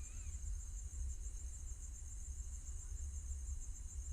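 Crickets trilling steadily in the background, a continuous high-pitched pulsing chirr, over a constant low hum.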